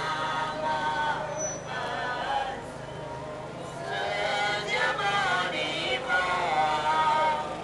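A group of voices chanting a Buddhist devotional hymn in unison, in long held phrases with a short break partway through, over a steady low hum.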